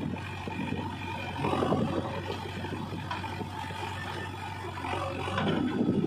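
Diesel engines of a JCB 3DX backhoe loader and a Mahindra tractor running at a steady low speed, a constant low hum under a rough rumble that grows louder near the end.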